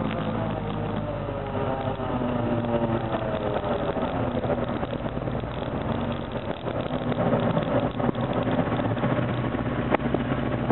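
Several sport ATV engines running at low speed, their overlapping notes drifting up and down with the throttle.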